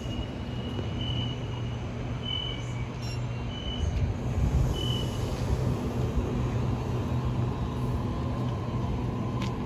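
Electric suburban train at the platform, a steady low hum over a rumbling noise, with a few brief high-pitched tones in the first half.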